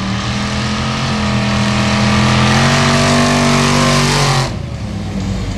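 A Formula Offroad buggy's engine at full throttle, accelerating hard off the start line of a sand drag run, its pitch stepping up twice. About four and a half seconds in it cuts off abruptly to a quieter, more distant engine sound.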